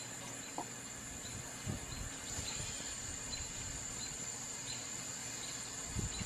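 Insects trilling in the background: a steady high-pitched drone with a softer chirp repeating roughly every two-thirds of a second. A couple of brief low thumps come partway through and again near the end.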